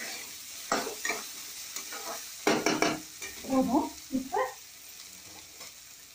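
A metal spatula stirring and scraping cubes of raw plantain in an oiled kadai, a run of short sharp scrapes over a light frying sizzle. The stirring stops a little past halfway, leaving only the faint sizzle.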